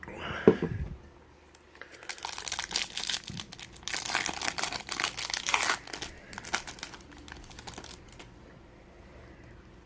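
Foil wrapper of a Topps Chrome trading-card pack being torn open and crinkled, dense crackling from about two seconds in for some four seconds, then thinning to light rustles and clicks. A brief loud swish of handling comes just after the start.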